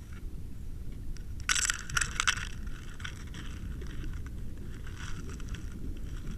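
Muffled sound recorded underwater by a submerged Water Wolf camera: a steady low rumble of water with scattered clicks and crackles, a cluster of them between about one and a half and two and a half seconds in.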